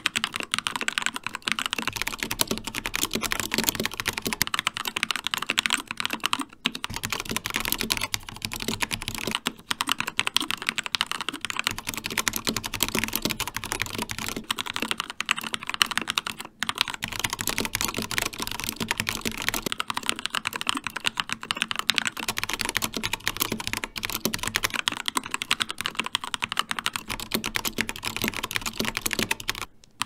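Continuous fast touch-typing on a Keychron K2 mechanical keyboard with Gateron Red linear switches: a dense patter of keystrokes, broken by a few brief pauses.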